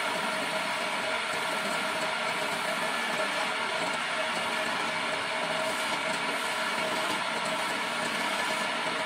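Homemade electric wood lathe running steadily with a motor whine, while a hand chisel cuts and scrapes along the spinning wooden baluster.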